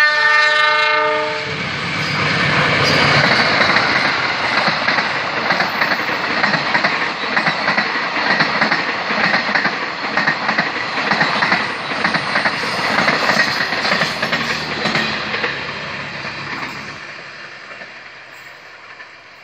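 A diesel locomotive's horn sounds once for about a second and a half, then an express passenger train passes at speed, its wheels clattering over the rail joints. The rumble fades away near the end as the train recedes.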